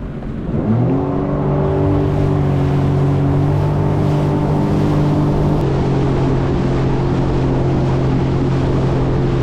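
Sea-Doo Fish Pro Trophy jet ski's Rotax three-cylinder engine revving up as the ski pulls away, then running steadily at speed over the hiss of water and wind. Its pitch eases down slightly a little past halfway.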